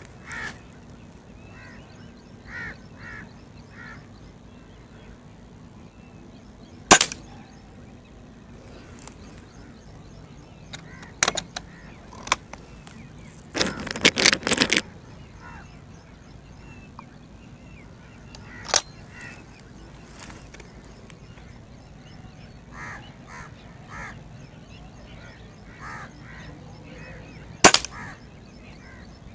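Break-barrel spring-piston air rifle (LB-600) firing pellets: two sharp shots, one about 7 seconds in and one near the end, with a weaker crack between them. Midway comes the clatter and clicks of the barrel being broken open to cock and reload it. Birds call now and then in the background.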